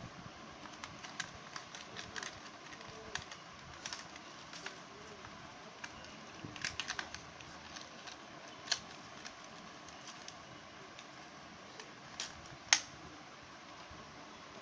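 Hands handling a plastic toy RC car's chassis and battery compartment: scattered light plastic clicks and taps, with one sharper click near the end, over a faint steady hiss.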